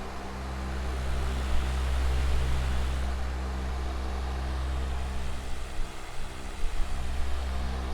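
Electric fan with metal blades running steadily: a low motor hum with a few steady tones under an even rush of air.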